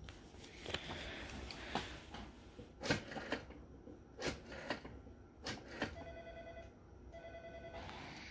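Rotary dial of a Western Electric Model 500 telephone being dialed: scattered clicks as the dial and handset are handled, then about six seconds in the dial whirs back twice, a shorter run and a longer one, sending its dial pulses.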